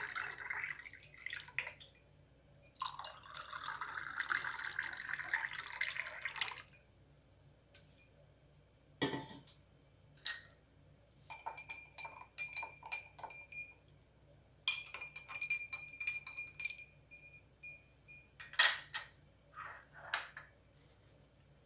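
Cold water poured from a steel bowl into glasses of ice and lemon syrup, two pours that stop about six and a half seconds in. Then a run of sharp, ringing clinks of a spoon and ice against glass as the drinks are stirred, the loudest near the end.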